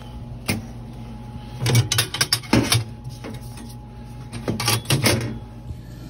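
Sharp clicks and clattering knocks in three short bursts, from hand work on a gas boiler's controls and parts, over a steady low hum.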